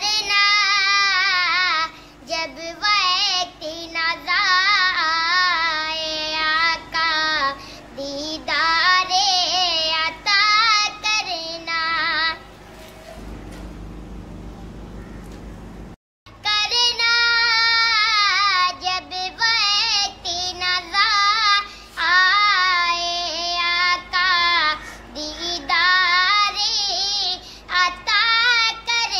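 A high voice singing a slow devotional song (naat) in long phrases with wavering pitch. The singing stops for about four seconds about halfway through, leaving a low hiss, then resumes.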